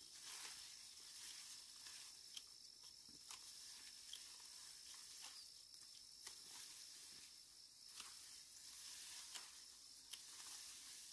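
Faint rustling and snipping of dry upland rice stalks as rice panicles are cut by hand, in scattered short clicks over a steady high-pitched hiss.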